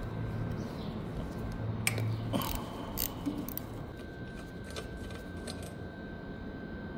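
Hand tool working loose the four bolts of a motorcycle's handlebar clamp: a few scattered metallic clicks and taps.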